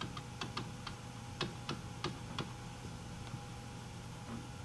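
Light, irregular clicks and taps of a pen touching down on the writing surface while a note is written. They come thickly for about the first two and a half seconds, then only now and then, over a faint steady hum.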